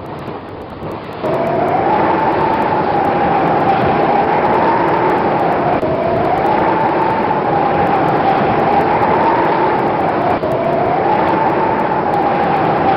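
Space-themed ambient sound effect. A soft wind-like hiss gives way, about a second in, to a loud steady rushing drone carrying a whining tone that swells up, wavers and drops back about every four and a half seconds.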